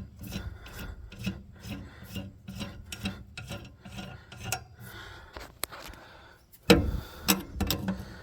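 Repeated rasping strokes of a hand tool, about two a second, being worked to tighten a part. A few louder knocks come near the end.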